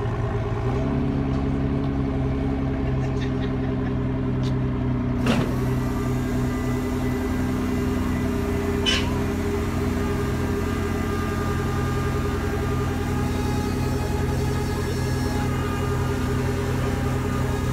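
An engine running steadily with an even low drone. It steps up slightly about a second in, as a car transporter's deck lowers a car. Two sharp metallic clanks come about five and nine seconds in.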